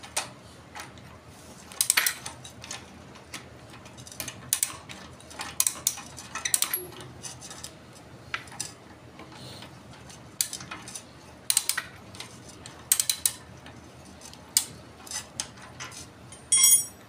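Hand ratchet wrench clicking in short irregular runs as it is swung back and forth, tightening a nut that holds an iron handle in place. A brief ringing metallic clink comes near the end.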